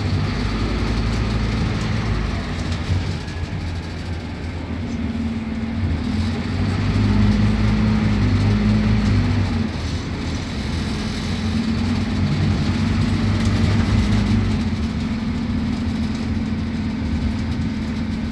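Scania K280UB city bus's five-cylinder diesel engine running under way, pulling harder twice and easing off in between.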